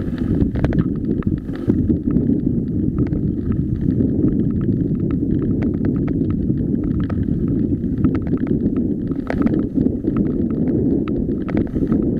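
Mountain bike rolling fast over loose gravel and stones, heard through a camera mounted on the bike: a steady low rumble of the tyres on gravel and wind on the microphone, with frequent sharp clicks and rattles from stones and the bike's parts.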